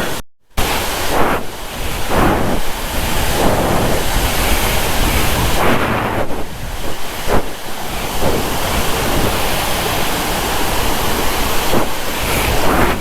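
Loud, steady rush of water overflowing a reservoir and pouring down as a waterfall, with a deep rumble underneath. The sound cuts out for a moment shortly after the start.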